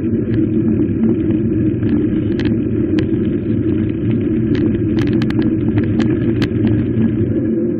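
Bicycle rolling over cobblestone paving: a steady, dense rumble from the tyres on the stones, with sharp rattling clicks scattered throughout.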